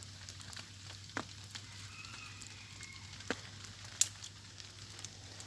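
Small campfire of bark and twigs burning in the rain: a faint, even hiss with a few sharp pops, the loudest about four seconds in.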